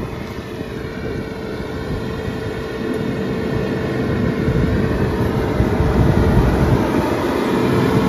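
Fendt 412 tractor running under load while its Claas Rollant 255 round baler picks up a hay windrow. A steady whine runs through the engine sound, and everything grows steadily louder as the outfit approaches.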